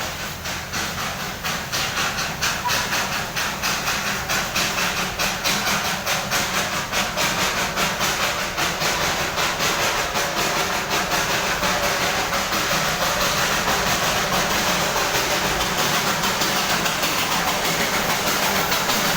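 Darjeeling toy train steam locomotive working along, its exhaust chuffing in an even, rapid beat over a steady steam hiss, growing louder as it approaches.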